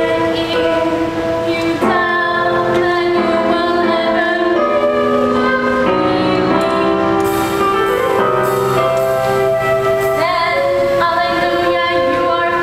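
Stage-musical song: held accompaniment chords that change every second or two, with a female voice singing.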